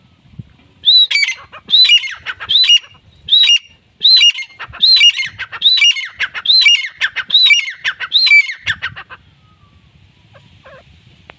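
Grey francolin calling: a loud series of about a dozen high, ringing notes that rise and fall, repeated about once or twice a second for around eight seconds and stopping about nine seconds in.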